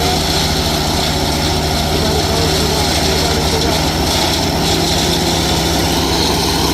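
A heavy engine running steadily at a constant speed, with no revving or load changes.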